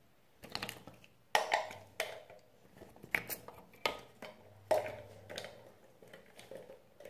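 Irregular string of sharp plastic clicks and knocks as a toothbrush, a plastic cup and a toothpaste tube are handled while toothpaste is put on the brush.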